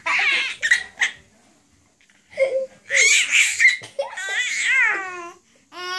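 A baby babbling and letting out high-pitched, drawn-out squeals in several separate bursts, the longest about four seconds in.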